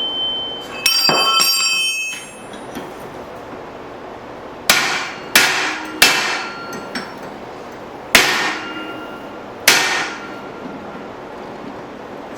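Blacksmith's hammer striking hot steel at the anvil while drifting a forged hammer head's eye: one ringing metallic strike about a second in, then five sharp, separate blows, a few leaving a brief ring.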